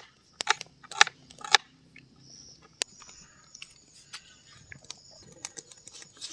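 Sharp cracks and snaps of wet wood at a small campfire of sticks and pine needles: several loud cracks in the first two seconds and one more near three seconds, then a faint crackle and hiss.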